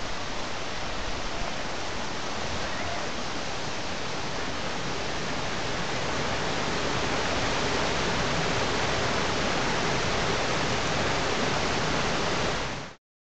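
Rocky mountain stream rushing and splashing over boulders in small cascades: a steady rushing noise that grows a little louder over the first several seconds, then cuts off abruptly near the end.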